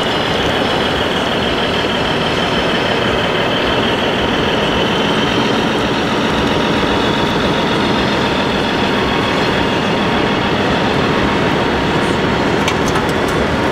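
Steady mechanical rumble with a faint whine from RC construction models at work, including a scale wheel loader climbing a ramp with a loaded bucket; it runs evenly without a break.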